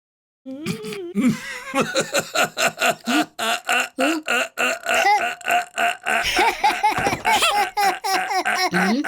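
A cartoon character's voice laughing in quick, repeated bursts, about four a second, starting about half a second in.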